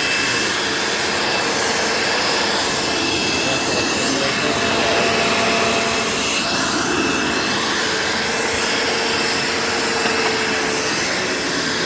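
1990 Dirt Devil Featherlite bagged upright vacuum cleaner running steadily while vacuuming, its motor giving a constant whirring rush with a faint steady whine over it.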